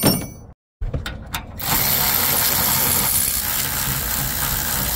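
Cordless electric ratchet running steadily, spinning a nut off. It starts a little under two seconds in, after a few short clicks.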